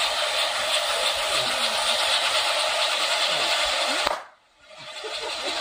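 Qingniao-brand 8-inch spinning fountain firework spraying sparks with a loud, steady hiss. The hiss cuts out suddenly about four seconds in and comes back within a second.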